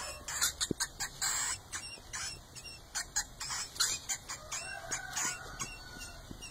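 A house mouse cornered by a cat squeaking defensively, giving short, sharp, high squeaks a few times a second.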